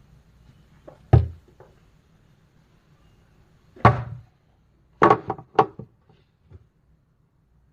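Packaging being handled: a sharp knock about a second in, a heavier thud near four seconds, a quick run of three or four knocks just after five seconds, and a faint tap near the end.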